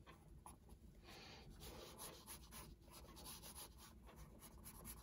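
Faint scratching of a red pencil sketching on toned Strathmore paper, in many quick short strokes.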